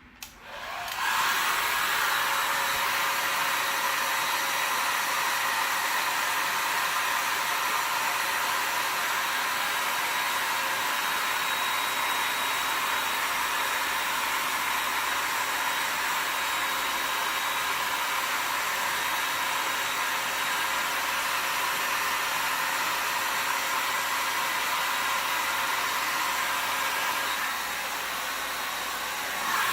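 A handheld hot-air blower running steadily with a constant airy whoosh. It switches on about a second in.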